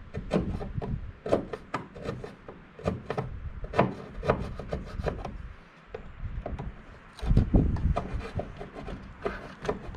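Hand scraping and rubbing at the plastic housing of a DeWalt blower heater, trimming melted plastic from around a widened keyhole: irregular scrapes and clicks. A heavier knock of handling comes about seven and a half seconds in.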